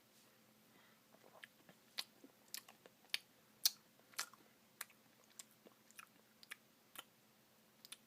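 A person chewing a mouthful of soft-serve ice cream with cookie dough pieces close to the microphone: faint, irregular wet mouth clicks and smacks, about two a second, starting about a second in.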